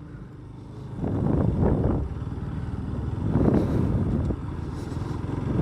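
Motorcycle running while under way, its engine and road noise swelling about a second in and rising and falling unevenly.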